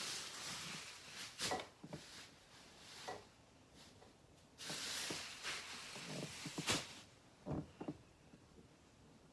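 Bedding being handled: two long rustling swishes of sheets and blankets being pulled and spread, with a few soft thumps as pillows and covers are moved.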